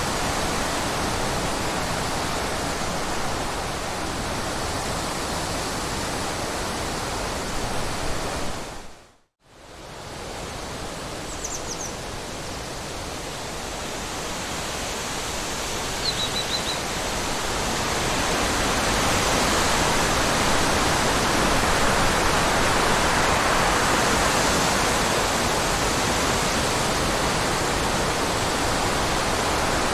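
Steady rushing water, an even noise with no rhythm, that dips briefly to silence about nine seconds in and then comes back, growing a little louder in the second half. A couple of faint, short high chirps sound over it.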